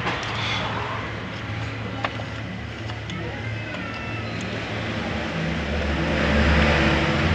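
A motor vehicle engine running steadily in the background, swelling louder about five and a half seconds in, with a sharp click about two seconds in.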